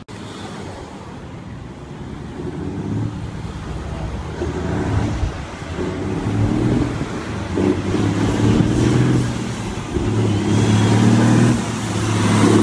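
Heavy dump truck's engine running under power, growing steadily louder as the truck approaches, over background road traffic.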